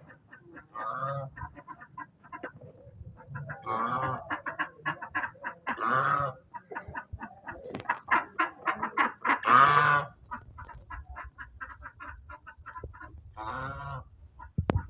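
Chickens clucking in a rapid stream of short notes, broken by several louder drawn-out calls, the loudest about ten seconds in.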